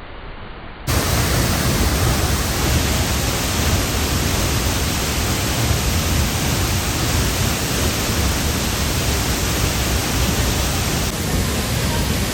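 Waterfall rushing: a loud, steady roar of falling water that starts abruptly about a second in.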